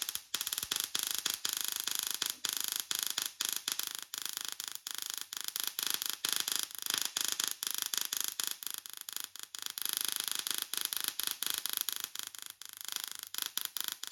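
Tesla coil arcing: a dense, rapid crackle of electric sparks, bright and hissy, running continuously with uneven dips in loudness.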